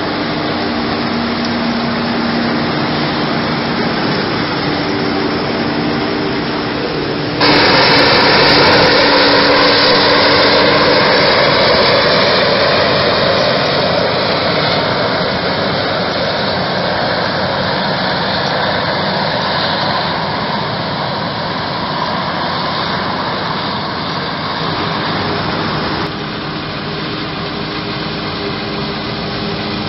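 Krone Big X 1100 self-propelled forage harvester chopping standing maize, with a Fendt tractor and silage trailer running alongside: a steady, loud mix of engine and chopping machinery. The sound changes abruptly about seven seconds in and again near the end.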